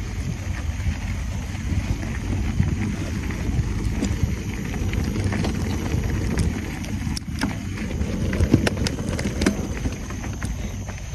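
Mountain bike being ridden on a dirt trail: steady wind rumble on the microphone and tyre noise, with a run of sharp clicks and rattles in the second half.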